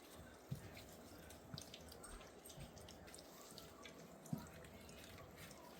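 Golden retriever puppies lapping soupy blended puppy food: faint wet clicks and smacks, with a slightly louder tick about half a second in and another about four seconds in.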